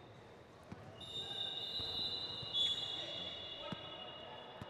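Basketball bouncing on a gym floor during a game, a few separate thumps. From about a second in there is a long, steady high-pitched tone.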